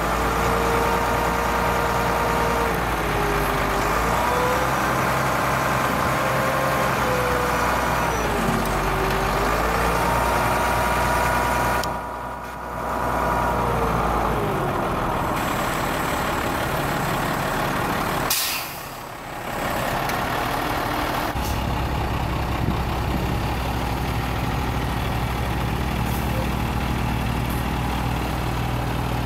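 The truck's DT466 turbo diesel runs while the Altec boom's hydraulics are worked. A whine dips and rises in pitch several times over the first ten seconds as the boom and pole grabber move, and a steadier engine idle follows. A brief sharp sound comes about two-thirds of the way in.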